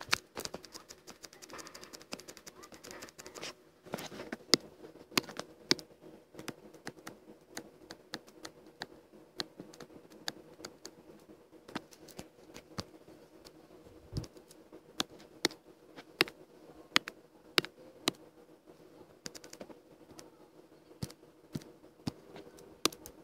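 Computer keyboard and mouse clicking at irregular intervals, with a quick run of typing in the first few seconds, over a faint steady hum.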